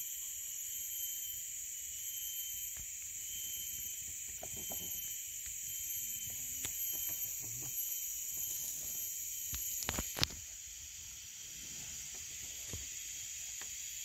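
Rainforest insects droning in a steady high-pitched chorus, with a few faint clicks and one sharper tap about ten seconds in.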